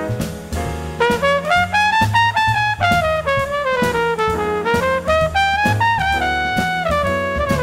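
Jazz trumpet playing a winding melodic line that climbs and falls, backed by double bass and a drum kit keeping time on the cymbals.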